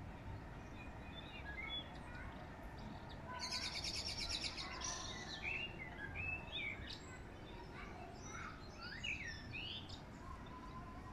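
Several songbirds singing: scattered chirps and short whistled phrases, with a fast, rapidly repeated trill about three and a half seconds in, over a low steady background hum.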